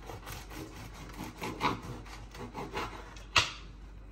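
A kitchen knife sawing through a crusty homemade semolina bread roll on a wooden cutting board: a run of short rasping strokes as the blade works through the crust, then one sharp crack near the end.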